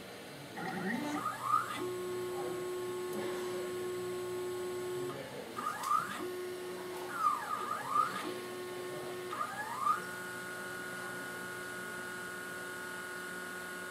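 XYZprinting da Vinci 3D printer's stepper motors driving the print head as the printer readies a print. Several short whines rise and fall in pitch over a steady motor and fan hum, and from about ten seconds in a steady tone holds.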